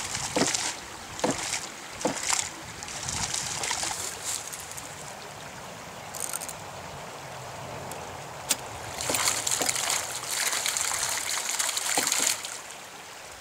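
Homemade ram pump's weighted waste-valve poppet clacking shut every second or so during priming, over the steady run of creek water. About nine seconds in, water gushes and splashes out of the open waste valve for about three seconds.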